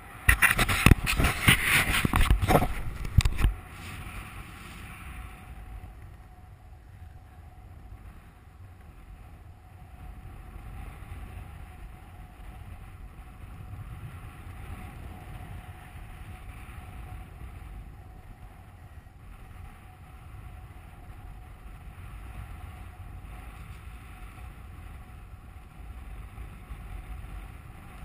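Airflow buffeting the microphone of a camera on a paraglider in flight: heavy, gusty wind noise for about the first three and a half seconds, then a steadier, quieter rush of air.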